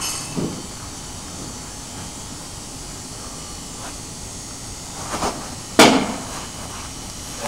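A pitched baseball striking its target with one sharp, loud smack about six seconds in, preceded by a couple of faint knocks during the delivery.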